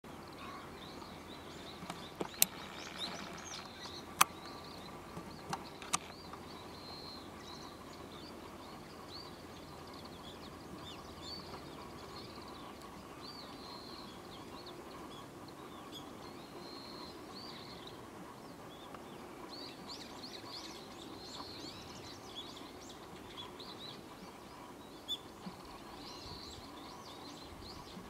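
Songbirds chirping and twittering in short high calls throughout, over a faint steady outdoor hiss. A few sharp clicks stand out in the first six seconds.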